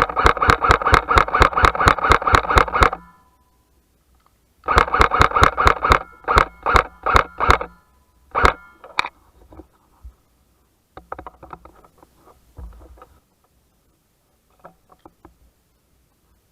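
Airsoft electric rifle firing: a fast string of shots for about three seconds, then another burst and several single shots between about five and nine seconds in, followed by fainter shots farther off.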